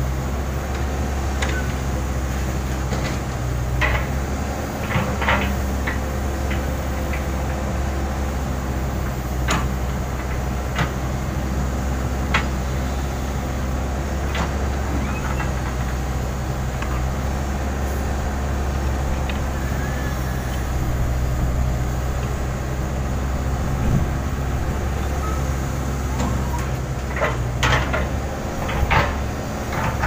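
Case N Series backhoe loader's diesel engine running steadily under load while the backhoe digs, with scattered short knocks and scrapes from the bucket working through soil and stones.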